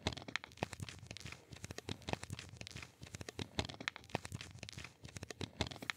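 Blue medical-gloved hands rubbing and pressing close to the microphone: a dense, irregular stream of crinkly clicks and rustles.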